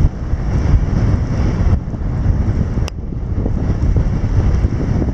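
Heavy wind buffeting the microphone, over the steady rush of a shallow river ford. A single short click about three seconds in.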